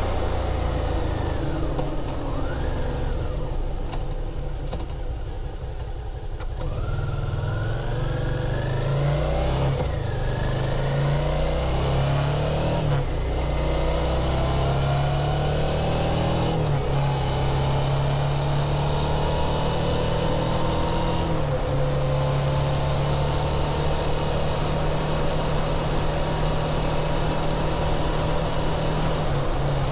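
2017 Suzuki V-Strom DL650's 645 cc V-twin through its stock muffler, pulling away and accelerating up through the gears. Its note rises in repeated sweeps, each broken by a short dip at the upshift. From about halfway it holds a steady cruising note.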